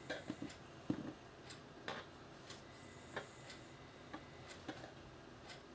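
Faint, irregular small clicks from metal crochet hooks being handled and worked through yarn, a dozen or so light ticks spread unevenly.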